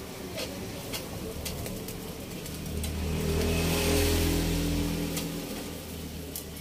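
A motor vehicle's engine passing by, growing louder to a peak about four seconds in and then fading away. A few light clicks, from metal tongs against the grill grate, come early on and again near the end.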